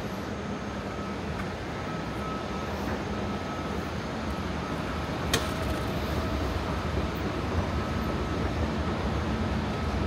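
Steady low rumble of passing vehicles in the city, with a faint steady whine, growing slightly louder. One sharp click a little past halfway.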